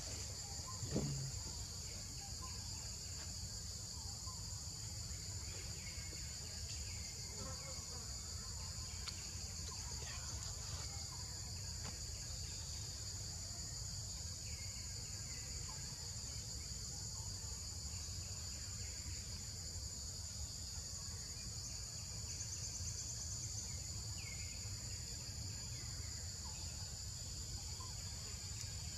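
Steady high-pitched drone of insects in forest, with faint short chirps every few seconds and a low background rumble.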